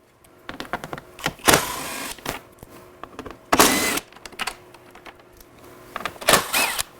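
Cordless impact drill with a Torx 30 bit, run in three short bursts to back out three panel screws, with small clicks and rattles of handling between the bursts.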